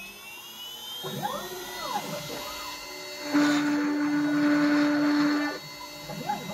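LEAD 1010 CNC router engraving Corian with a 60° carbide V-bit: the spindle runs with a whine that rises and falls in pitch as the axes move. From about three seconds in, a louder steady hum with a hiss of cutting comes in for about two seconds, then eases off near the end.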